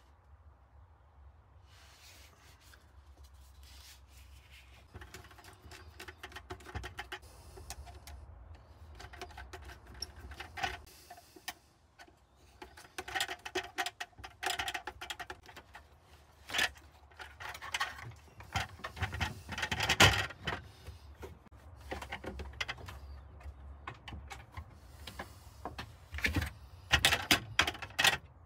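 Handling noises from wiring a plastic weatherproof socket outlet: scattered clicks, taps and scrapes of plastic parts, cable cores and a screwdriver. The clicks come thicker and sharper in the second half, with a cluster near the end.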